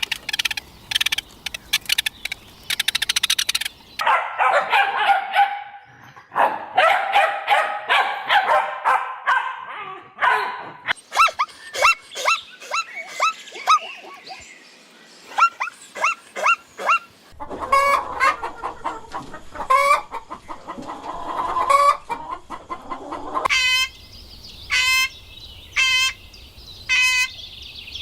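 Domestic chickens: hens clucking and roosters crowing, in short clips that change every few seconds. Near the end comes a run of evenly spaced short calls.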